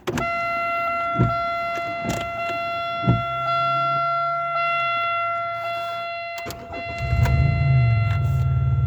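A 1999 Chevrolet Malibu's 3.1 L V6 being started with a new ignition lock cylinder and key: a steady electronic warning tone sounds with a few key clicks, then about seven seconds in the engine catches and runs. The start shows that the new lock cylinder works.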